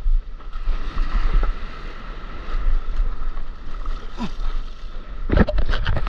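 Broken surf washing and splashing around a stand-up paddleboard, heard close from board level, with a steady low rumble and a cluster of sharper splashes near the end.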